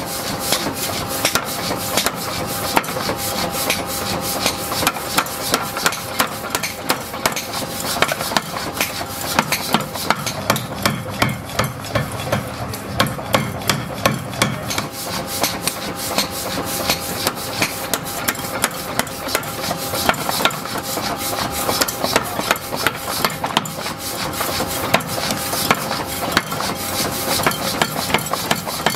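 Flywheel-driven mechanical power hammer pounding a red-hot steel block in rapid, repeated blows, with a steady machine hum underneath. For a few seconds in the middle the blows sound duller, with more low rumble.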